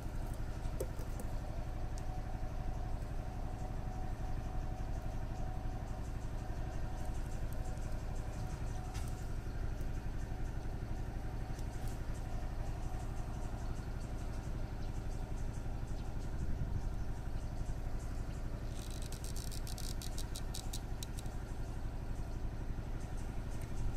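A steady low engine hum, like a motor idling, running unchanged throughout. A brief patch of fine rapid clicking comes about nineteen seconds in.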